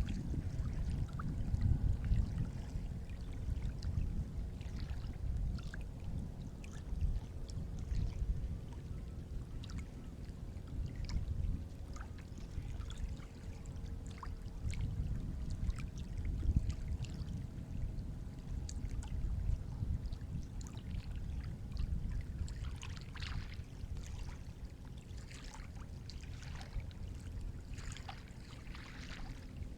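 Sea water washing and lapping: a steady low rumble with scattered small splashes and trickles.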